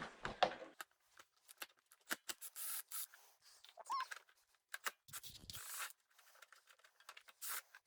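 Faint, scattered clicks, scrapes and rustles of metal parts and fasteners being handled as a cover comes off the vibrating plate, with a short squeak about four seconds in.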